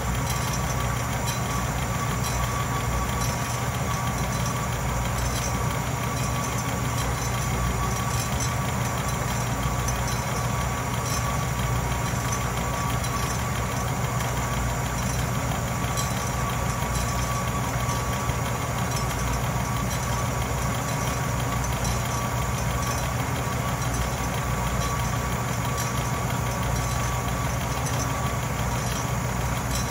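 Atlas metal lathe running steadily under power while a boring bar cuts inside the bore of a 2-inch hex stock workpiece: an even machine hum with a thin steady high tone.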